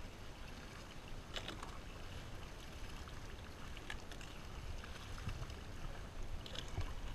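Low rumble of wind and sea water washing against the side of a drifting boat, with a few faint sharp clicks.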